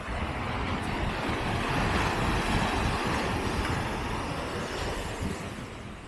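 A gust of wind buffeting the microphone: a low, fluttering rumble under a rushing hiss that swells over about two seconds and dies away near the end.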